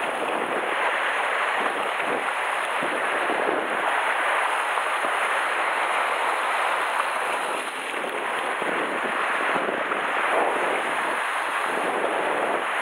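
Rough sea surf washing and breaking over shore rocks in a strong wind: a steady rushing hiss.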